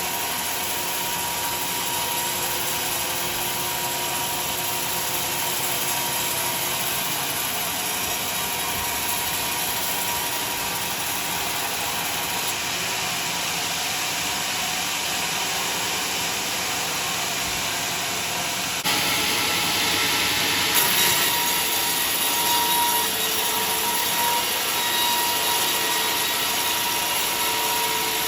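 Sawmill saw running and cutting through a large log, a steady mechanical din with a thin whine in it. About two-thirds in it abruptly gets louder and brighter.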